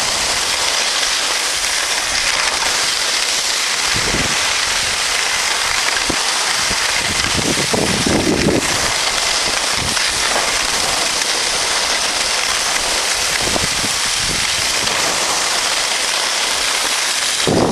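Steady rushing hiss of skis sliding over packed snow during a downhill run, with wind buffeting the microphone in brief low rumbling gusts now and then.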